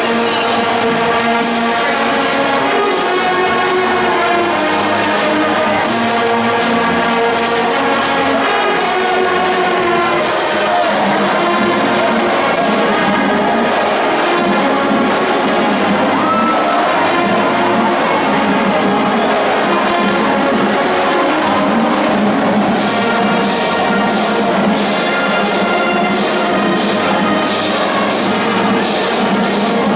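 A high school marching band playing: brass and woodwinds carrying the tune over a steady beat of marching drums.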